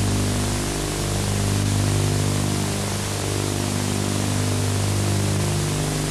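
Steady hiss with a low electrical hum underneath: the background noise of an old videotape soundtrack, with no other sound standing out.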